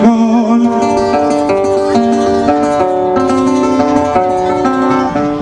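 Guitar music: a slow melody of plucked notes over chords that change about every half second.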